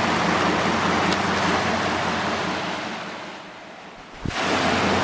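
Rushing water of a rocky, snow-lined creek: a steady loud hiss over a low steady hum. It fades about three and a half seconds in and cuts back in suddenly a little later.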